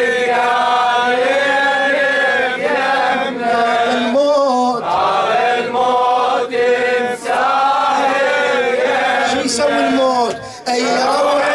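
Men chanting an Arabic Muharram mourning lament (latmiya) to a slow melody with long held notes, breaking off briefly about four and a half seconds in and again near the end.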